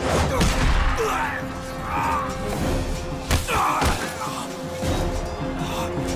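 Background score with sustained held tones, overlaid by fight sound effects: a heavy thud right at the start and a sharp hit a little over three seconds in, among scattered thumps.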